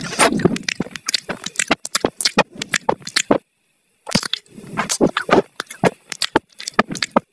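Chocolate Labrador chewing a raw meaty bone: a fast run of crisp crunches and cracks, broken by a short silent gap about halfway through.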